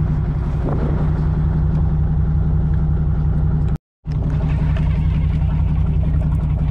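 Fishing boat's engine running steadily at an even low pitch, broken by a brief moment of silence about four seconds in.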